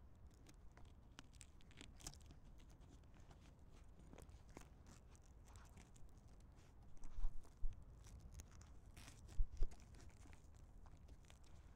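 Faint wind rumble on a small onboard camera microphone, with light crackling and a few low thumps: one pair about seven seconds in and two more near nine and a half seconds.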